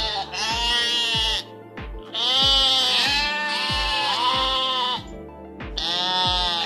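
Sheep bleating about five times, each bleat long and wavering, over background music with a steady thumping beat.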